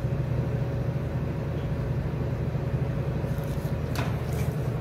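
Steady low hum of a commercial espresso machine running, with one light click about four seconds in.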